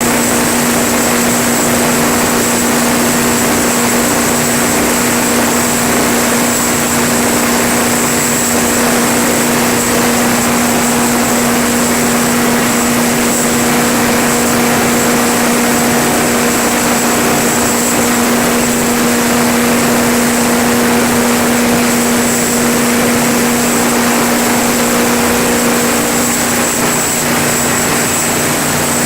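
Detroit Diesel 12V-92TA two-stroke V12 diesel engine of a Kohler 440 kW generator set running steadily at constant speed, with a steady hum and a high whine over the engine noise.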